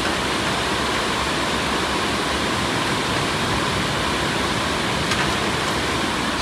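Aluminium melting furnace running with a steady, even rushing noise while a bale of scrap cans burns down into the molten metal. A light knock about five seconds in.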